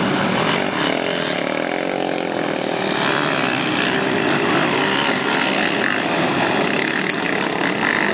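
A pack of racing quad bikes passing close by, many engines revving hard at once, their overlapping pitches rising and falling as riders open and close the throttle.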